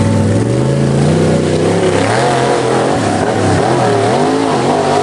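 Off-road hill-climb vehicle's engine revving hard, its pitch climbing over the first couple of seconds, then rising and falling again and again as the throttle is worked.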